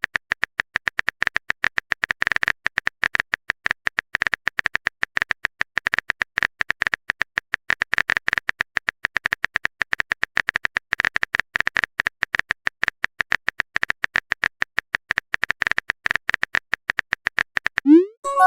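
Rapid, irregular clicks of a phone keyboard typing sound effect, several taps a second. Just before the end a rising swoosh leads into a short chime.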